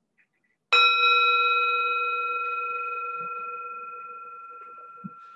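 A handheld singing bowl struck once with a mallet, used as a meditation bell: it rings with several clear, steady tones that fade slowly over the following seconds.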